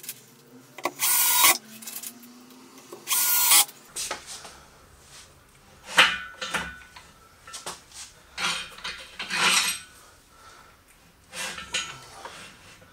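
Cordless drill running in two short bursts in the first few seconds, fixing a metal faceplate to a wooden bowl blank. Then scattered clicks and knocks as a metal chuck is handled and fitted on the lathe headstock.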